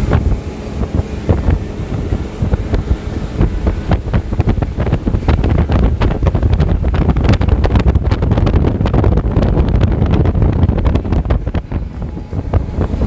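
Strong storm wind buffeting the microphone in a low, steady rumble, with rain pattering in a dense run of sharp taps from about four to twelve seconds in.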